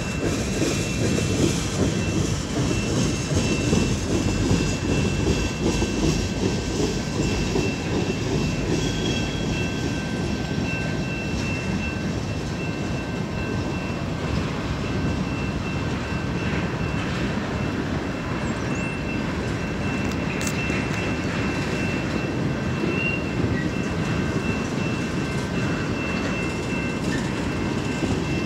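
Freight cars of a long CN freight train rolling past at speed: a continuous rumble with wheels clattering over the rails and a thin steady whine above it.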